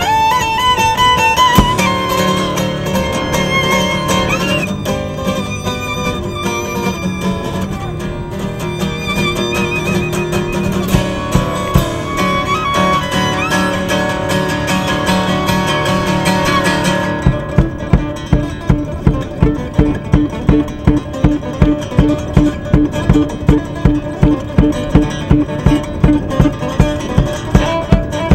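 Fiddle playing a gliding melody over acoustic guitar. About two-thirds of the way through the fiddle line falls away, leaving a steady strummed guitar rhythm of about two strokes a second.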